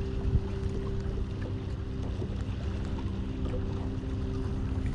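A boat motor humming steadily under a gusty rumble of wind on the microphone.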